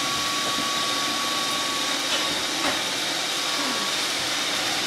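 Steady rushing hiss of a running appliance motor, with a thin high whine that fades near the end, and one faint light tick about halfway through.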